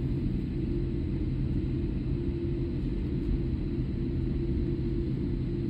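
Cabin noise inside a Boeing 787-8 Dreamliner with GEnx engines as it rolls on the runway: a steady low rumble with a steady hum over it, holding even with no rise in pitch.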